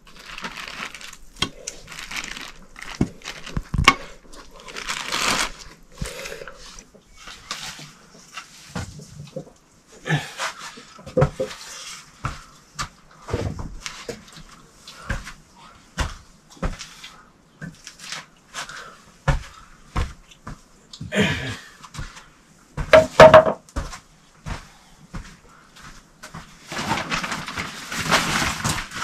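Irregular knocks and clatter of kitchen work with pots and utensils, with brief patches of hiss now and then.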